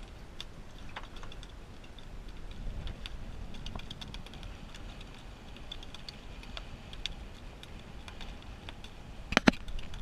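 Wind buffeting the microphone with scattered light ticks and small splashes of choppy water against the boat's hull, and one sharp knock about nine and a half seconds in.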